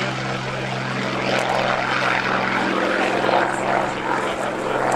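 Hawker Hurricane's Rolls-Royce Merlin V12 engine and propeller giving a steady drone as the fighter flies past.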